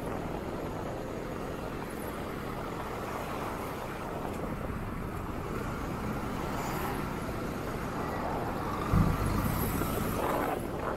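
Steady road noise heard from a moving motorcycle: engine, tyres and passing traffic, with a short low thump about nine seconds in.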